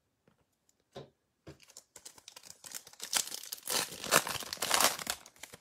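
A foil trading-card pack wrapper being torn open and crinkled by hand: a rapid crackling that starts about two seconds in, after a couple of soft taps.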